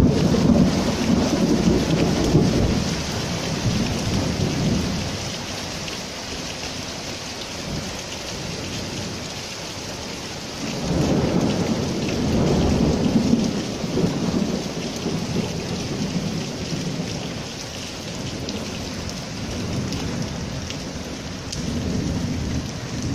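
Heavy downpour of rain drumming steadily on flooded paving. Rolling thunder rumbles low under it, fading over the first few seconds, swelling again about halfway through and briefly near the end.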